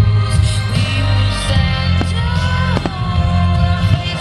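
Music with a heavy bass and a gliding melody line, with a few sharp firework bangs cutting through it about a second apart.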